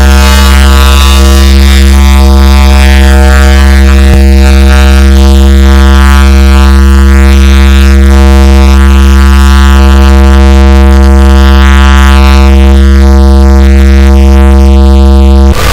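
Deliberately overdriven 'earrape' meme audio: one low droning tone held steady at full volume and heavily distorted. It changes abruptly near the end.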